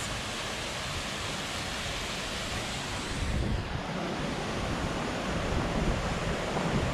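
Steady rush of a small waterfall cascading over rocks into a pool. From about three seconds in, wind buffets the microphone and adds a low rumble.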